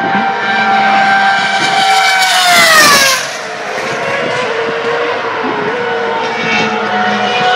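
2012 Formula One car's 2.4-litre V8 engine at high revs, its pitch falling sharply as it passes close by, loudest about three seconds in. It then goes on at a lower, slowly rising pitch with a brief drop about six seconds in, typical of an upshift, and a higher engine note comes back near the end.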